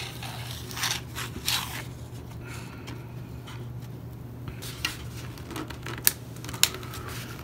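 Handling noise of foam and plastic model parts: light rubbing, scraping and clicks as a spar is pushed into a foam RC plane's tail and a stabilizer half is slid onto it and pressed home, with a sharp click about six seconds in. A steady low hum sits underneath.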